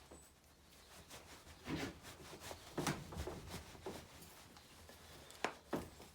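Faint, scattered knocks and clicks of hand work at a bench vise as the broken plastic handle is worked off a tyre-plug insertion tool.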